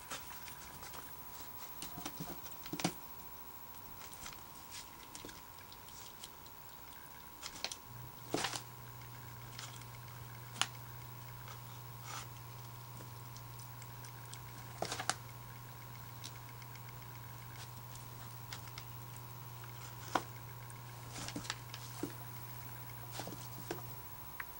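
Baby fox squirrels scrabbling on newspaper and gnawing at an ear of corn on the cob: scattered small clicks and rustles, a few of them louder. A low hum starts about eight seconds in and stops near the end.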